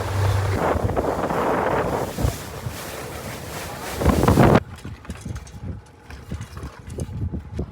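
Wind buffeting the phone's microphone aboard a small boat, with a low engine hum in the first moment; the rush swells loudest about four seconds in, then cuts off suddenly to a much quieter stretch.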